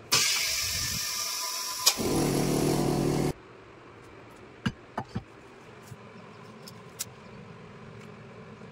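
BabaTools OCA bubble-remover autoclave rushing air with a loud hiss as its button is pressed, then a click about two seconds in and a coarser, lower rush of air that stops abruptly after about a second and a half. A few light clicks and taps follow.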